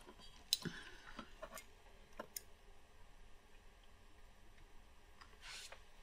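A few faint, sharp clicks and taps of small nail-art tools (metal tweezers and acrylic brush) against the nail and acrylic pot, bunched in the first couple of seconds, with a short soft rustle near the end.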